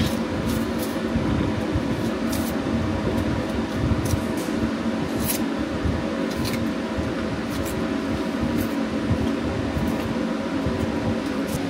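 Steady mechanical hum of running machinery, with a few steady tones in it. Faint crisp knife scrapes roughly every second as onions are peeled and trimmed by hand.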